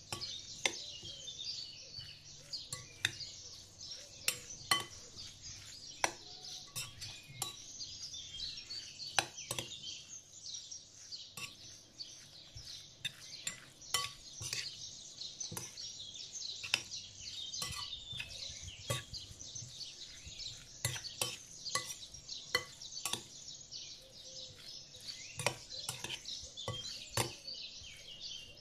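Metal fork stirring and tossing grated beetroot salad in a glass bowl, clinking against the glass many times at irregular intervals. Steady chirping of many small birds runs underneath.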